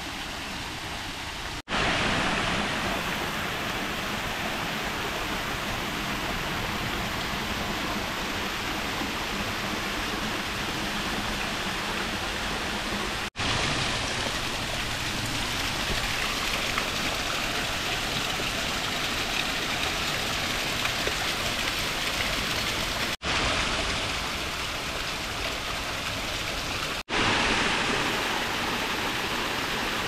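Waterfall rushing: a steady, even wash of falling water, broken by four abrupt momentary dropouts where the recording cuts.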